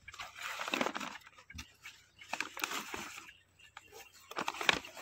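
Kraft paper bag rustling and crinkling as it is pulled down over a female date palm flower cluster, in irregular bursts that grow louder near the end.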